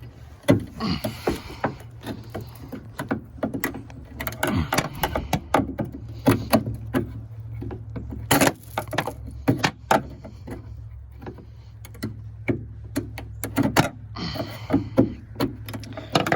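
Flathead screwdriver clicking and scraping against the metal end fitting and retaining clip of a hood lift support (gas strut) as it is pried off its ball stud, with many irregular sharp clicks and knocks over a steady low hum.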